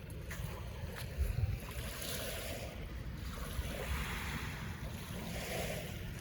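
Wind rumbling on the microphone over the steady wash of water.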